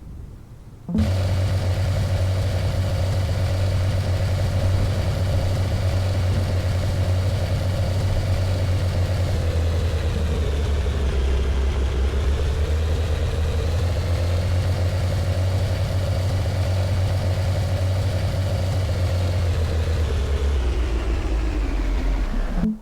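Vehicle engine running steadily with a deep hum. Its pitch sags slightly about halfway through and again near the end. It starts abruptly about a second in and cuts off abruptly near the end.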